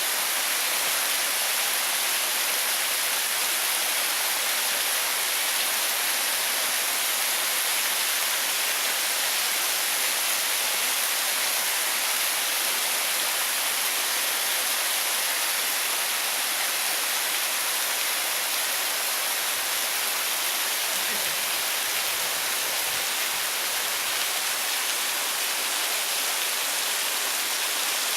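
Waterfall: a steady rush of falling water, its hiss strong and even.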